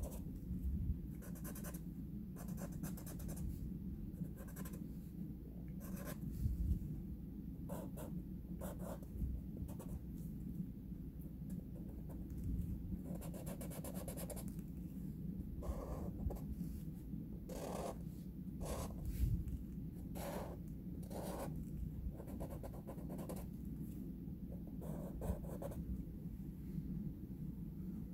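Felt-tip marker scratching across paper in many short, separate strokes as jagged fur lines are drawn, over a steady low hum.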